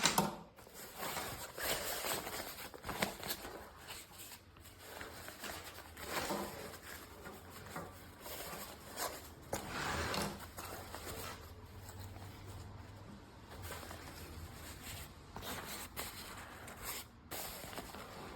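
Rustling and handling noises, like fabric being moved about, in uneven swells, with a few sharp clicks.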